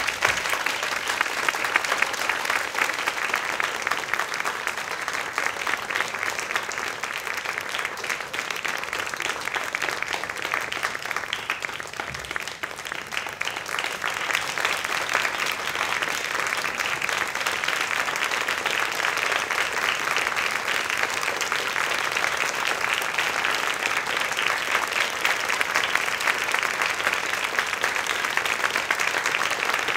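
Theatre audience applauding, sustained clapping from a small seated crowd that starts suddenly and keeps up steadily, dipping briefly about twelve seconds in before picking up again.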